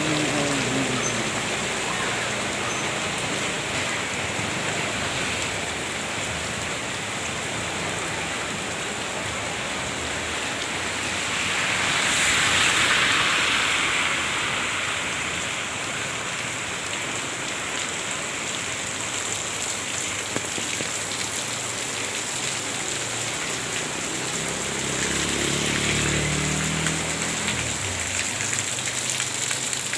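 Steady rain falling and splashing on surfaces, with a louder swell of hiss about halfway through. Near the end a low engine hum rises and fades as a motor vehicle passes.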